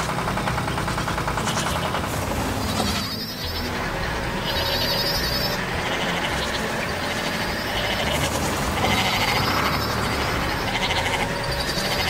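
Goats bleating several times, cartoon sound effects, over a continuous low rumble.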